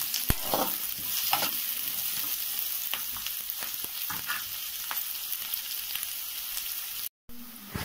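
Sliced onions with dried red chillies and green chillies sizzling in hot oil in a pan, with a steel spoon scraping and clicking against the pan as they are stirred. The sound cuts out briefly near the end.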